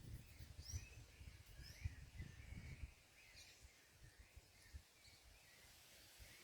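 Faint scattered chirps of small songbirds, short upward-sliding calls a few times a second, over a low uneven rumble.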